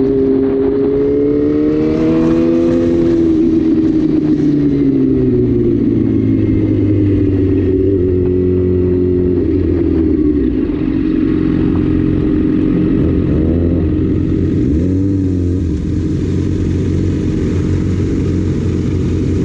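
Sport motorcycle engine heard from on the bike, its pitch rising and falling with the throttle and gears. Near the end come a few quick throttle changes, then it runs steadier and lower as the bike slows and pulls up.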